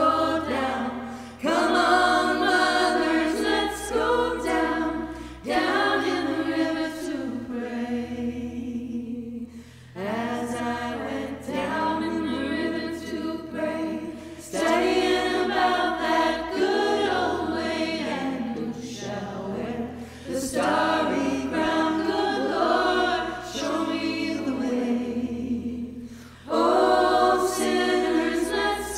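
Three women singing a cappella in harmony, in long phrases with short breaks between them.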